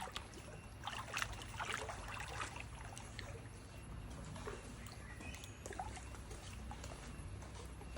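Faint light splashing and trickling of pool water as a child swims, kicking the legs.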